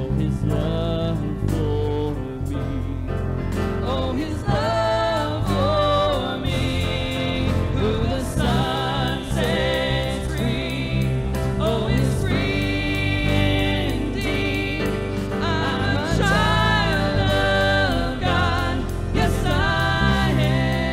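A gospel-style Christian worship song: singing over instrumental accompaniment with a steady bass.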